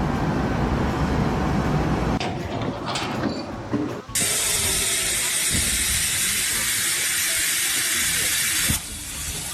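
A low mechanical rumble with a few knocks, then about four seconds in a loud, steady hiss, like a jet of air, steam or spray, that cuts off suddenly near the end.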